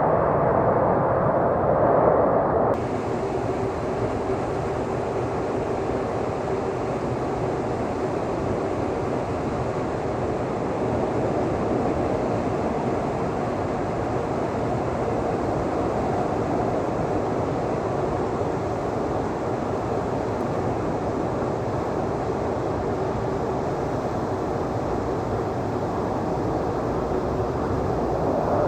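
Steady jet engine noise of an Airbus A330 airliner arriving, an even noise with a faint steady whine. About three seconds in, a louder stretch of jet noise from an A321neo cuts off abruptly.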